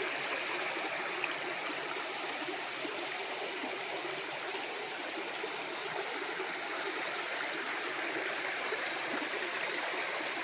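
Running water flowing steadily, an even, unchanging sound.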